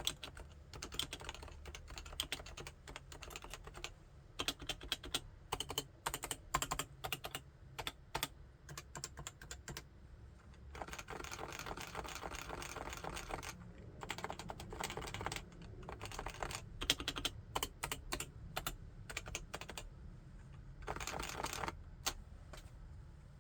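Topre Realforce 87UKD55 tenkeyless keyboard with electrostatic capacitive (Topre) switches being typed on: irregular runs of keystrokes, with two stretches of fast, continuous typing, one near the middle and one near the end.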